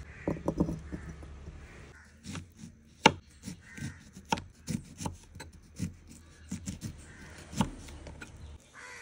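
Kitchen knife slicing a lemon into rounds on a wooden cutting board: a run of sharp, irregular chops about two to three a second, the blade knocking the board each time, the loudest about three seconds in. It is preceded by a short burst of handling sounds as grapes are plucked from their stem.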